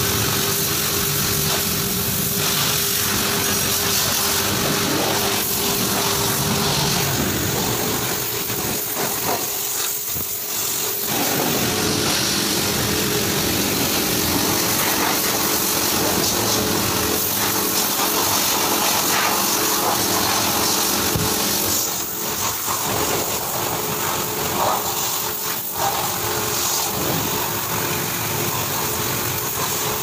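Pressure washer running steadily: a pump hum under the hiss of a high-pressure water jet spraying onto a motorcycle. The hum and spray drop out for about a second, about ten seconds in.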